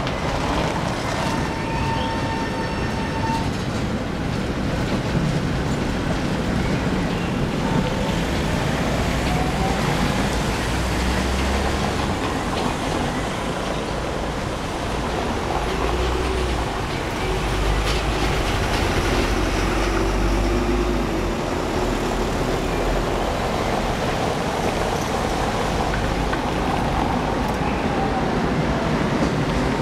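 Tatra T3 tram running past on a tight curve, with a thin wheel squeal on the rails in the first few seconds. Around the middle, a city bus's diesel engine passes with a heavier low rumble, followed by cars rolling over the cobblestones.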